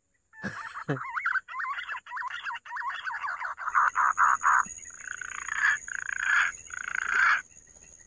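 A green pigeon (punai) call imitated by mouth: a run of warbling, looping whistles that turn breathier and hissier in the last few seconds before stopping shortly before the end. A thin, steady high whine joins about halfway through.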